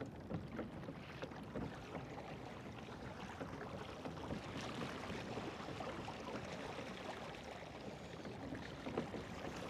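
Water lapping and sloshing around a kayak, with small scattered knocks and ticks.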